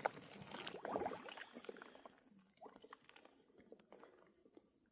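Faint sloshing of water in an ice bath, with small knocks and clicks of ice chunks, for about two seconds; it then fades to near silence with a few faint clicks.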